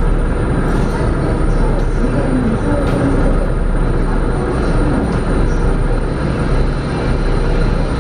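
Steady low rumble of a car ferry under way, its engines running.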